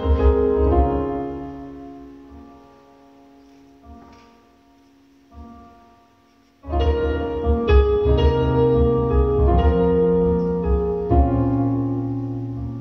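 Piano played live with slow, sustained chords that ring out and fade almost to silence, then a loud chord is struck about halfway through and the playing resumes, slowly dying away again.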